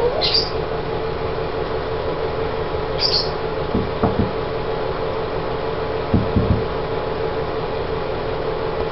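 Steady room hum with two brief high squeaks from a pet parrot, one just after the start and one about three seconds in, and a few soft low thumps around four and six seconds in.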